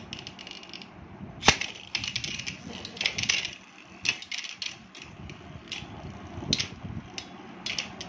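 Two metal-rimmed Beyblade spinning tops battling inside a plastic lid: a run of sharp, irregular clicks and clacks as they collide, the loudest about one and a half seconds in.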